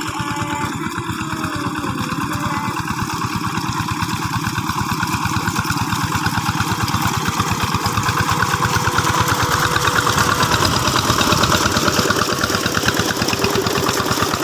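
Two-wheel hand tractor's single-cylinder diesel engine running with a rapid, even chug, growing steadily louder.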